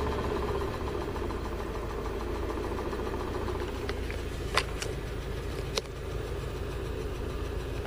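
Warm UAZ Patriot ZMZ-409 inline-four petrol engine idling steadily, with two sharp clicks about halfway through. The engine has a hot-engine ticking that the owner puts down, with some doubt, to failing hydraulic valve lifters.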